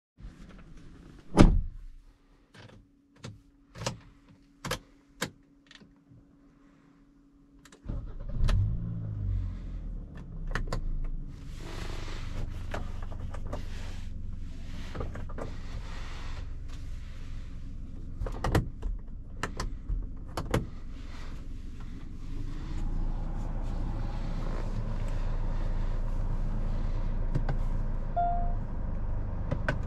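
Cabin of a 2020 Hyundai Sonata: a loud knock and several softer clicks over a faint steady hum, then the engine starts about eight seconds in with a brief flare and settles into a steady idle. More clicks come later, and the running sound grows louder and steadier in the last several seconds, with a couple of short chime tones near the end.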